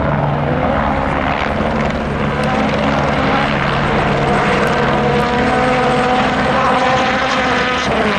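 Helicopter overhead, its rotor chop steady and loud, with a higher tone that rises slightly over the later seconds.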